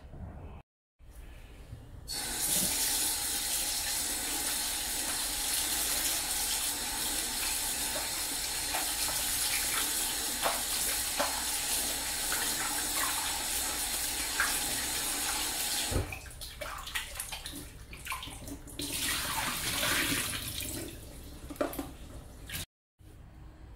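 Kitchen tap running steadily into a stainless steel bowl of blanched napa cabbage leaves, cooling them in cold water. It stops about two-thirds of the way in with a click, after which the wet leaves are swished and handled in the bowl.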